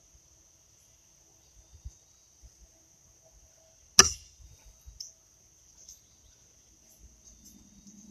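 A pitched horseshoe lands in the sand of the pit with one sharp hit about halfway through, followed by a smaller knock about a second later. Insects trill steadily in the background.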